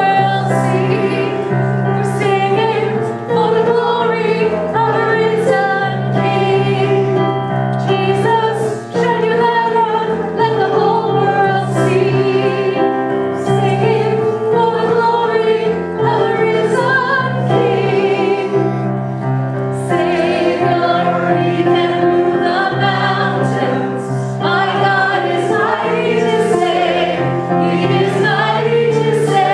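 Congregation singing a worship song together with instrumental accompaniment, steady and sustained.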